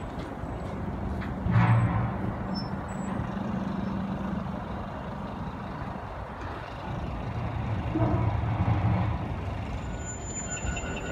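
City bus diesel engines running and passing, a steady low hum that swells louder twice, with a short hiss about two seconds in.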